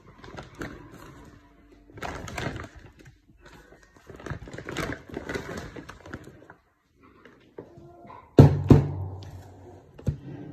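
Rustling and crinkling of a woven plastic shopping bag and packaging being handled, in irregular bursts, with a loud thunk about eight seconds in as something is set down.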